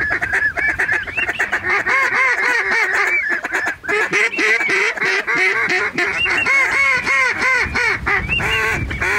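Geese honking: a dense run of short, overlapping honks and clucks with no break, a little sparser just before halfway.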